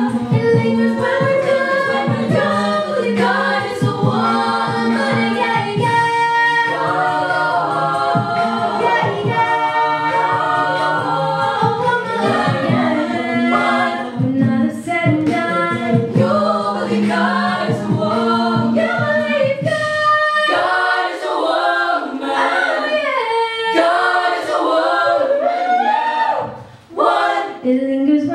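Female a cappella group singing: a lead vocalist over backing harmonies, with a sung bass line and a vocal-percussion beat. About two-thirds of the way through, the bass and beat drop out and only the upper voices carry on, with a brief pause shortly before the end.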